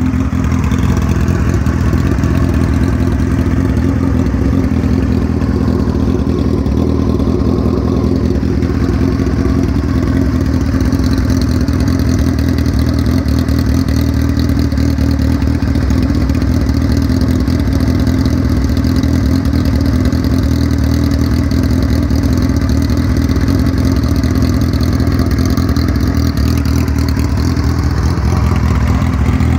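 2007 Suzuki Hayabusa's 1299 cc inline-four idling steadily through an RLS Cycles shorty exhaust.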